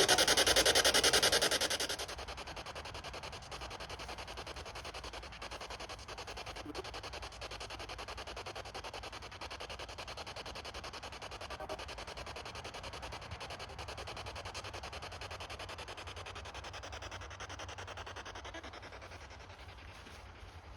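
Ghost-hunting noise box (an electronic static device) giving off loud hissing static with a rapid pulsing texture; about two seconds in it drops sharply in level and carries on as a quieter steady hiss, fading slightly near the end.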